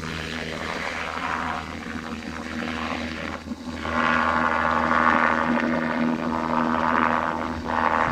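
Bell 206 helicopter's turbine and rotor running through a takeoff, a steady whine and rotor noise that grows louder about halfway through.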